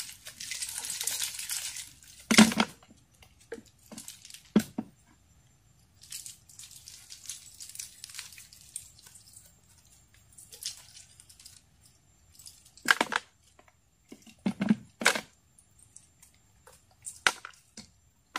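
A mesh fish trap is handled and emptied into a plastic bucket: a hissing rustle for about the first second and a half, then scattered sharp knocks against the bucket, the loudest about two seconds in, with faint rustling and dripping between them.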